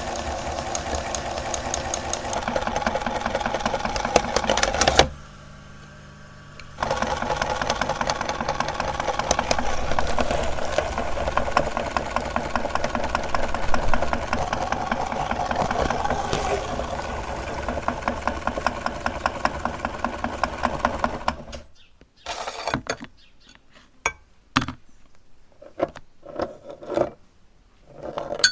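Electric meat grinder running with a steady hum and fast rattle while it grinds ice cream. It stops for about two seconds, starts again, then shuts off about three-quarters of the way through. A few short knocks and clicks follow.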